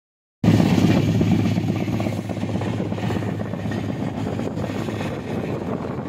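Passenger train running at speed, heard from an open coach window as a steady rumble and rush. The sound cuts in suddenly about half a second in.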